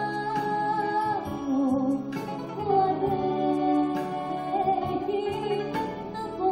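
A woman singing into a microphone over live electronic keyboard accompaniment, amplified through a PA, holding long notes.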